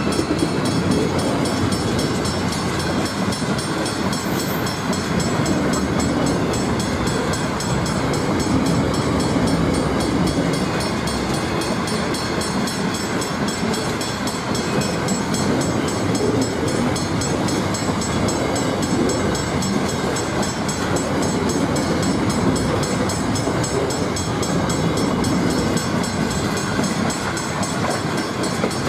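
Container freight train wagons rolling steadily past over a level crossing: steel wheels running on the rails.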